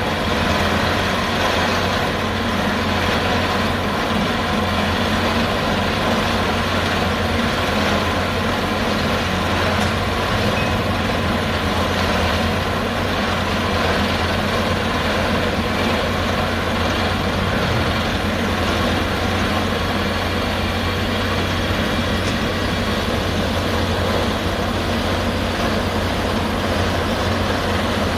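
Heavy rock-drilling machinery running steadily: a deep engine drone with a continuous, dense mechanical noise over it.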